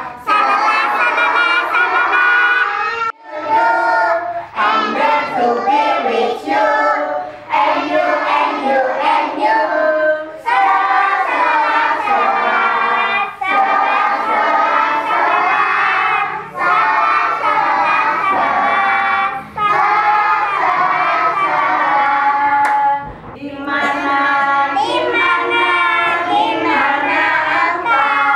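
A group of young children singing a song together in unison, in phrases of a few seconds with brief breaks between them.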